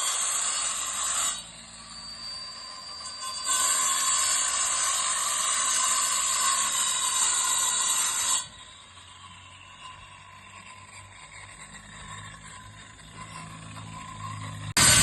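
A power tool running in bursts: one short run at the start, a longer run of about five seconds in the middle, and another start near the end, with quieter gaps between.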